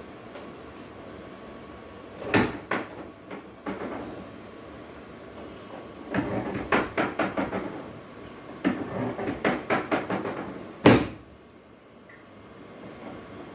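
A sharp knock about two seconds in, then two runs of quick clicks and clacks, and one loud knock near the end.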